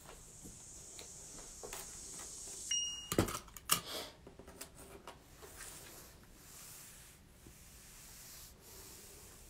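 Handling noise and clothing rustle as a person leans in close to the recording phone: rubbing and scraping, then a cluster of clicks and knocks about three seconds in, just after a brief high tone. Faint rustling follows.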